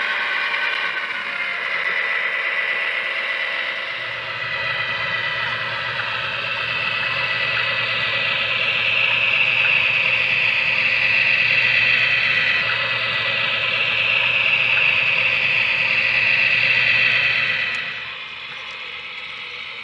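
HO scale model Burlington streamlined diesel passenger train running past, with diesel engine sound and running noise. It grows louder as the train draws near and passes, then drops off sharply near the end.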